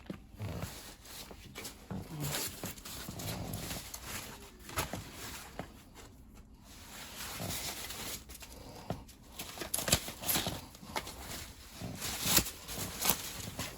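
Irregular handling noises of unpacking: scattered knocks, scrapes and rustling of packing material, with a few sharper knocks near the end.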